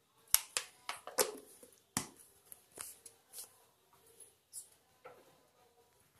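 Kitchen handling sounds: about a dozen light, irregular clicks and taps of utensils and containers as the next ingredient is fetched and spooned out.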